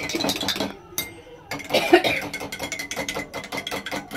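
A spoon stirring quickly in a glass mug of coffee, clinking rapidly against the glass, with a brief let-up about a second in.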